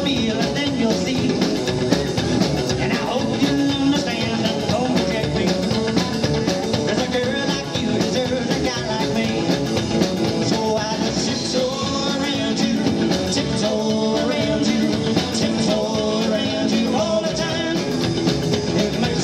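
Live rockabilly band playing at a steady beat: upright double bass, drum kit with cymbals and electric guitar, with a man singing into the microphone.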